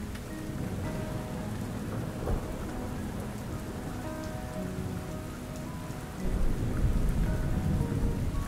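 Steady rain falling, with a low rumble of thunder swelling about six seconds in.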